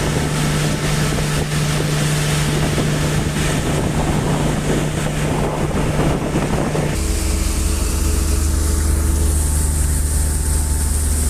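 Boat engine running steadily, with wind and water rushing. About seven seconds in, the engine settles to a lower, steady note and the rushing noise eases.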